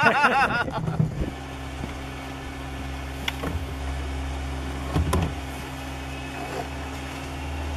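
A man laughs for about a second. Then a motor runs steadily at a low, even pitch, with a couple of short plastic knocks from jerry cans being handled.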